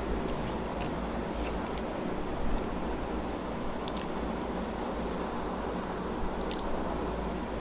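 Hand-eating sounds: fingers mixing rice with beans and chewing, heard as a few faint wet clicks over a steady background hiss and low hum.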